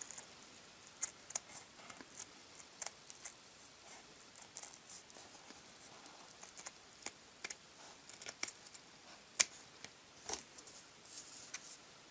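Steel scissors snipping through thin felt, a quiet run of irregular snips and clicks with short pauses between cuts.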